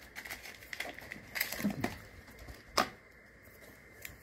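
Packaging being handled while a small electronic gadget is unboxed: a run of rustles and light clicks of plastic and cardboard for about two seconds, then one sharp click just under three seconds in and a light tick near the end.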